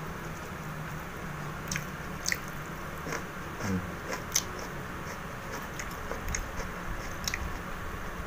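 Close-up chewing and biting on crispy deep-fried duck (bebek goreng), with sharp, irregular crunches about once a second and wet mouth sounds between them.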